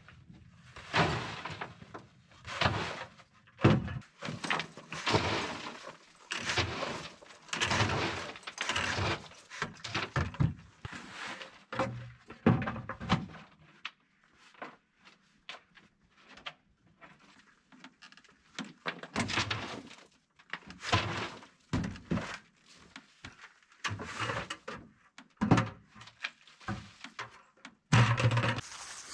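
Soil mix for a rammed-earth wall tipped from a plastic bucket into wooden formwork: irregular rushes of pouring and scraping earth, broken by thunks of the bucket and boots against the wooden form.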